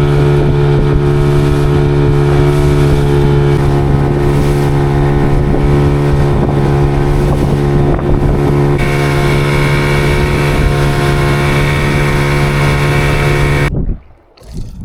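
Small boat's engine running steadily at speed, its tone brightening about nine seconds in, then cutting off abruptly near the end, leaving gusty wind on the microphone.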